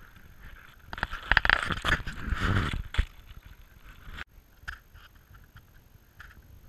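Wind gusting over a small action-camera microphone: a loud rushing gust with a low rumble for about two seconds, beginning about a second in, mixed with sharp ticks. It dies down about three seconds in, leaving a light wind background with scattered ticks.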